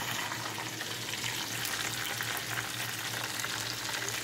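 Chicken fingers frying in hot oil: a steady sizzle with small crackles, over a steady low hum.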